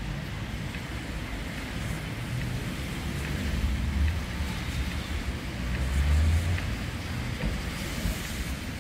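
Alstom NGT DX DD low-floor tram approaching and pulling in to a stop: a low rumble swells twice, loudest about six seconds in, over a steady hiss.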